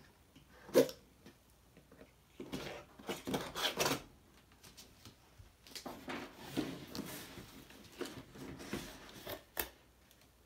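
Cardboard kit box being opened by hand: a sharp knock about a second in, then spells of cardboard rubbing and scraping as the outer sleeve slides off an inner box, with a short tap near the end.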